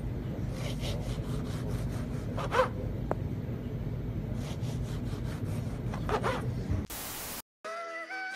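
Serrated bread knife sawing through a loaf on a cutting board, with quick back-and-forth rasping strokes through the crust. Near the end a brief hiss cuts in, and then music starts.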